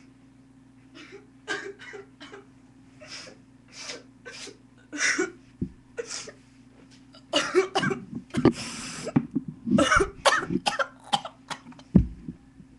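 A person coughing again and again in short breathy bursts, with a busier stretch of coughs and voice around the middle. A sharp thump near the end.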